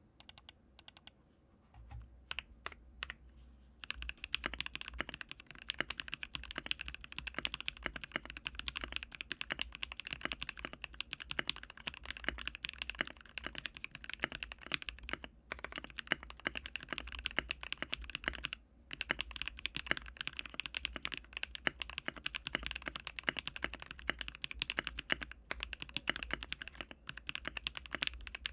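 Typing on an Ikki68 Aurora mechanical keyboard with a polycarbonate plate, Marshmallow switches lubed with Krytox 205g0 and IFK Comfy keycaps. A few separate clicks come first, then fast, continuous keystrokes from about four seconds in, broken by two brief pauses.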